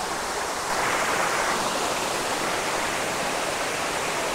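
A waterfall: a steady rush of falling water, which swells a little about a second in.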